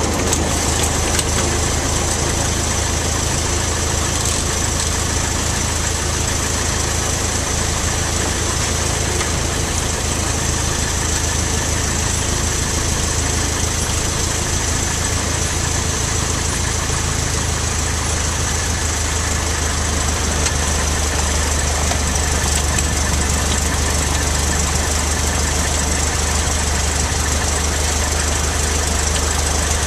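Cessna 152's four-cylinder Lycoming O-235 engine and propeller running steadily at low taxi power, heard inside the small cabin. The engine note grows slightly louder about twenty seconds in.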